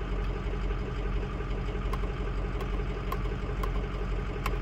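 Engine idling steadily: an even low hum with a few faint, irregular ticks over it.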